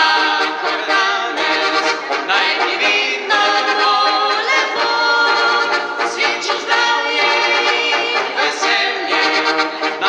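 A Slovenian folk-pop ensemble song: several voices singing together with accordion accompaniment.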